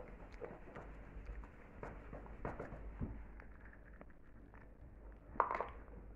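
Children chewing and crunching Oreo cookies: faint, scattered small crunches and clicks, with one brief louder noise about five and a half seconds in.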